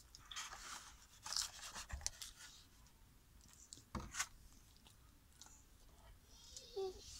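Dog chewing and crunching dried salmon treats: irregular crunches in the first couple of seconds, then two sharp cracks about four seconds in.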